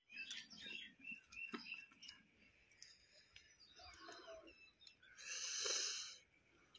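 Small birds chirping in quick bursts, most densely over the first two seconds. About five seconds in comes a louder rustling noise lasting about a second, as a hand mixes rice on a banana leaf.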